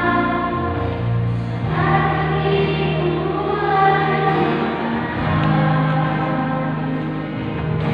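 Children's choir singing sustained notes that change every second or two, over a low held accompaniment.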